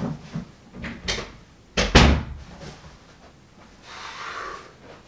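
Knocks and bumps of a door being handled off-screen, the loudest a sharp thud about two seconds in. Near four seconds there is a short rustle as a large box is carried in.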